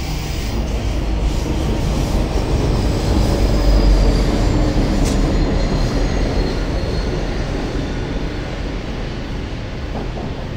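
Pacific National grain train's diesel locomotives and wagons rumbling as the train coasts downhill off the top of a grade, growing louder to a peak about four seconds in and then easing. A faint high wheel squeal rides over the rumble on the curve.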